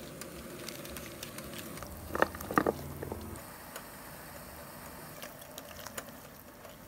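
Crinkling and sharp clicks of an instant-ramyun seasoning packet being handled and emptied into a pot, loudest in a short burst about two seconds in, over a faint steady hiss.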